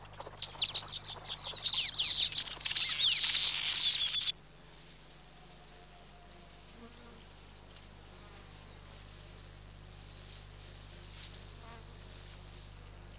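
Masked weavers chattering at their colony, a dense mix of rapid high chirps that cuts off about four seconds in. An insect's fast, evenly pulsed trill follows and swells for a few seconds later on.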